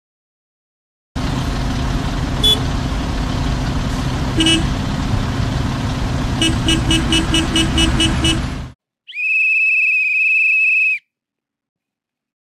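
Traffic noise with a car horn tooting twice, then a quick run of short rapid toots. After a brief gap comes a single long whistle blast, held about two seconds and cut off sharply.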